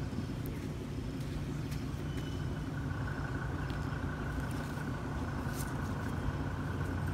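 Steady low hum of an idling engine, with a thin steady high tone joining about three seconds in.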